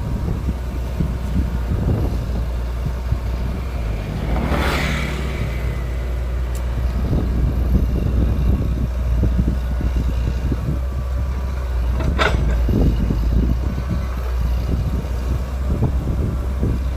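Diesel hydraulic excavators running steadily while digging earth, a low rumble with scattered knocks and crackles of soil, and two short rushes of noise, about five seconds in and about twelve seconds in.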